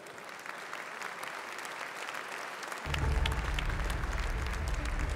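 Audience applauding. About three seconds in, background music with a heavy bass comes in under the clapping.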